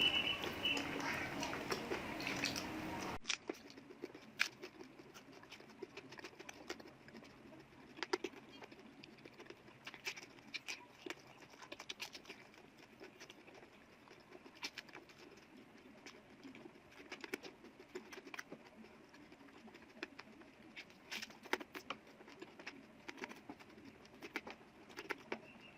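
Close-miked eating sounds: scattered soft clicks and smacks of chewing and utensils, irregular and faint. This follows a louder opening stretch with a high call-like sound that cuts off suddenly about three seconds in.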